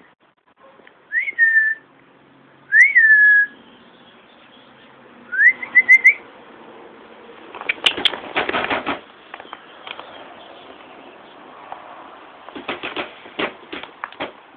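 A person whistling three times to call a dog: two whistles that slide up and then hold a steady note, then a run of quick rising chirps. In the second half come rustling and clicking noises.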